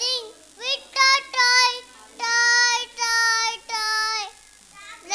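A child's voice singing a string of held, fairly level notes, each about half a second to a second long with short breaks between them.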